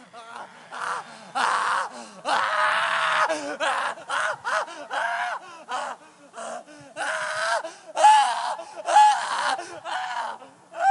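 A person screaming and wailing in a string of long, high-pitched cries, broken by short gasps.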